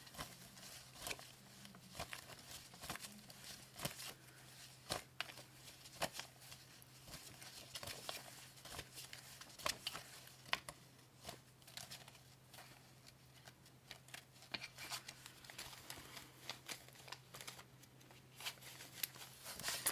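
Worn paper dollar bills rustling and flicking as they are counted and sorted by hand: faint, irregular soft clicks and crinkles.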